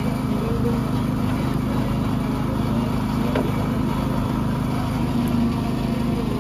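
A motor engine running steadily at idle, a constant low hum, with faint background voices.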